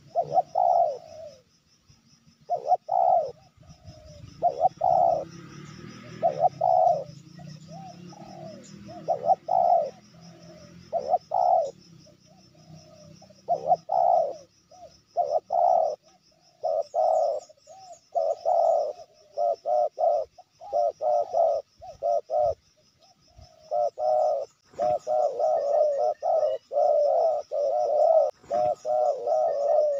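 Spotted dove cooing: repeated low coo phrases, spaced a second or more apart at first. From about halfway they come in quick runs, and near the end they follow each other almost without pause.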